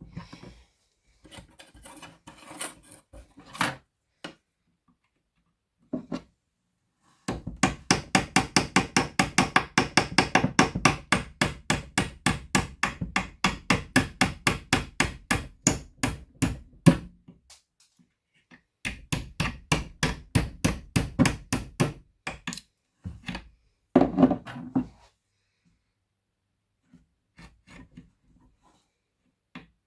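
Rapid hammer taps on wood, about four or five a second, in two long runs with pauses between, and a short burst near the end.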